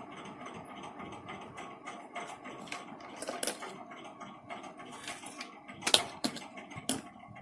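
Light clicking and rattling of a multimeter and its probes being handled to measure the set-top box's voltage, with a few sharper clicks about three and a half, six and seven seconds in.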